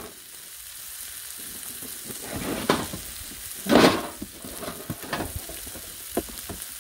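Tri-tip steaks searing on a Blackstone flat-top griddle, a steady fat-and-juice sizzle of the final sear. A few sharper sounds cut through it now and then, the loudest about four seconds in.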